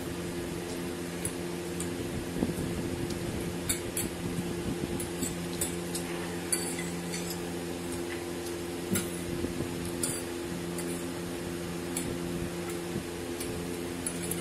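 Metal forks clinking and scraping against ceramic plates as noodles are picked up, a scattering of short sharp clicks over a steady low hum.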